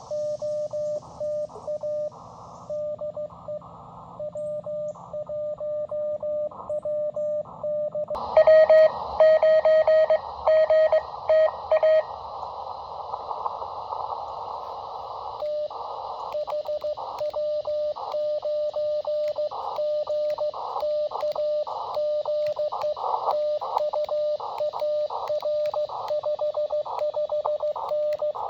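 Morse code (CW) from a ham radio transceiver: a single steady tone keyed on and off in quick dots and dashes, with receiver hiss around it. About eight seconds in, the tone and hiss jump louder, and for several seconds the hiss fills the gaps between the characters.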